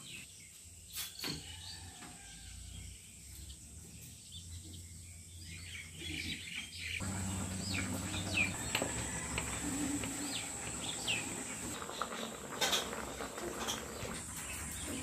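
Small birds chirping in short downward-sliding calls from about halfway in, over a steady high insect-like drone, with a few sharp clicks from a floor-mounted boti blade slicing unpeeled potatoes.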